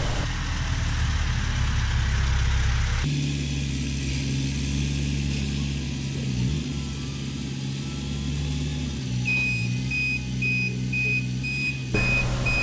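A telescopic handler's engine running steadily as it lifts a load. From about nine seconds in, a warning beeper sounds a rapid, regular series of short beeps.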